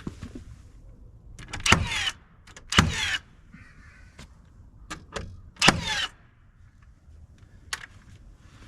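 Nail gun driving nails into poplar siding slabs: three loud shots, two close together and a third about three seconds later, each with a short whir, with a few lighter clicks and knocks between.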